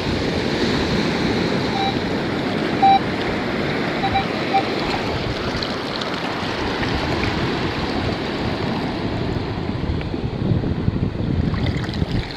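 Surf washing in around wading boots in shallow water, with wind on the microphone. A handful of short beeps from a metal detector sound in the first half.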